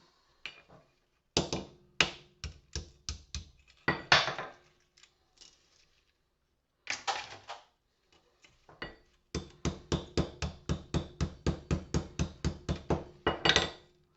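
Hammer blows smashing porcelain lamp holders to free the brass inside, with porcelain clinking and clattering: a few spaced strikes, then a fast even run of about four blows a second near the end.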